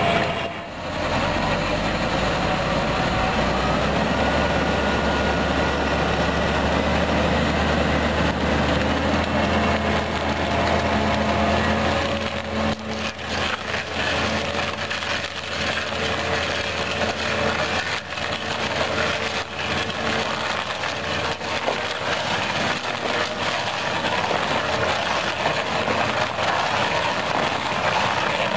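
Tractor-driven PTO stump grinder's spinning cutter chewing into a tree stump, with the tractor engine running steadily under load. Wood cracks and splinters, and chips knock against the machine, more often in the second half.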